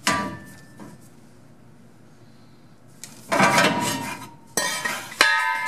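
Steel clanking and scraping with a metallic ring as a cut piece of rectangular steel tube is shifted against the car's steel frame. A sharp clank at the start, about three seconds of quiet, then a second of scraping clatter, another clatter and a sharp knock near the end.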